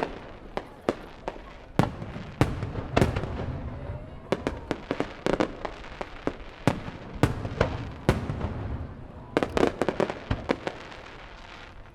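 Aerial fireworks shells bursting: many sharp bangs, often several in quick succession, with a quieter stretch near the end.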